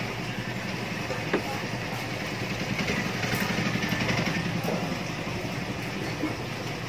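A small engine running steadily in the street, with a single sharp knock of a knife on a wooden chopping block about a second and a half in and a few fainter knife taps later.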